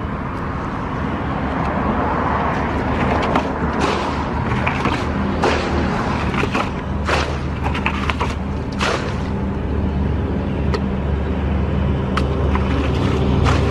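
A small engine running steadily, with a run of sharp, brief noises between about three and nine seconds in.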